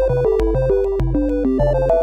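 Background music: an electronic, synthesizer tune with a quick melody of short notes over a steady beat and bass.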